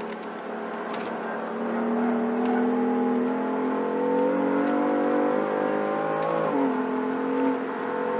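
2015 BMW M3's twin-turbo inline-six engine pulling under acceleration, its pitch rising steadily for about five seconds, then dropping sharply about six and a half seconds in.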